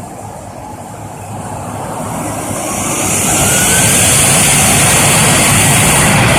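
An airplane's engines growing steadily louder as it comes close, a loud rushing roar with a high hiss and a faint rising whine, then holding at full loudness from about four seconds in.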